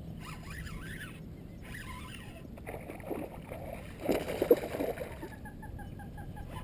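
Largemouth bass leaping and thrashing at the water's surface on a fishing line, a rush of splashing that peaks in a couple of sharp slaps about four seconds in.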